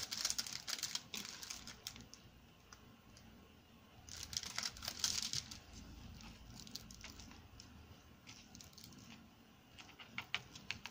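Light plastic clicks and crinkling: a light-up diamond-painting drill pen tapping against the plastic drill tray and pressing resin drills onto the film-covered canvas. The clicks come in a cluster at the start and another about four seconds in, then scattered ones near the end.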